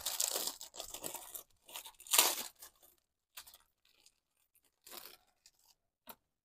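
Packaging torn open and crinkled by hand: rustling tears through the first second and a half, the loudest tear just after two seconds, then a few faint crinkles and a short tap near the end.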